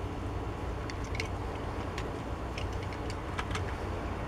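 Steady low hum with a few faint, short clicks scattered through it.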